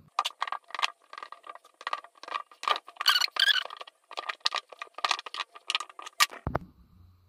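Chef's knife chopping a slab of clear glycerin melt-and-pour soap base into cubes on a silicone mat: a quick, irregular run of sharp clicks and taps as the blade cuts through and strikes the mat. The clicks stop about six seconds in, followed by a dull thump.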